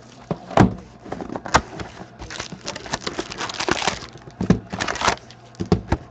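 A cardboard box of hockey cards being opened and its foil-wrapped packs spilled and shuffled on a tabletop: a busy string of rustles, scrapes and light knocks.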